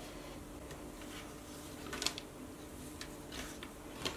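Faint handling noise of paracord being worked on a plastic braiding jig: soft rustles and light ticks, the clearest about two seconds in and near the end, over a faint steady hum.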